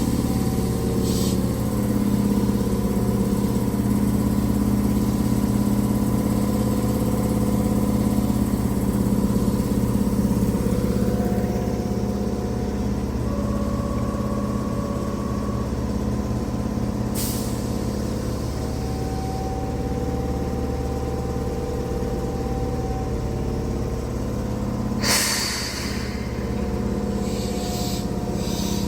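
Keihan 6000-series electric train standing at the platform, its on-board equipment humming steadily. A short sharp hiss of air comes about 17 seconds in, and a louder one about 25 seconds in.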